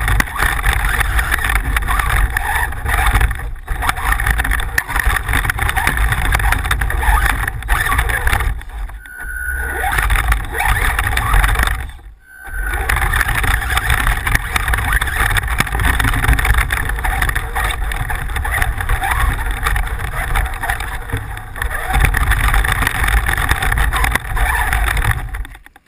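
Radio-controlled off-road car driving over rough ground, its motor running with a continuous rough rumble that dips twice, briefly, partway through.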